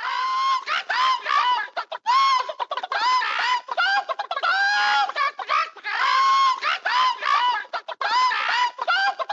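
Hens cackling and clucking, several calls overlapping in a dense, continuous chatter that starts abruptly.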